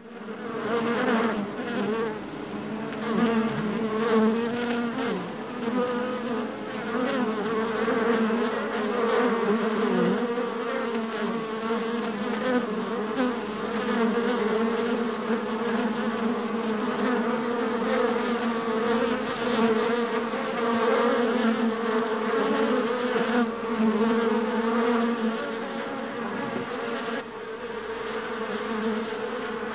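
Honeybees swarming and buzzing at a beehive: a dense, continuous drone of many wingbeats whose pitch wavers around a low hum.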